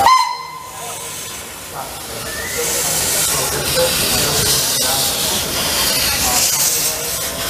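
Vintage steam tram locomotive passing close by, hissing steam. The hiss builds up about two and a half seconds in and then holds steady.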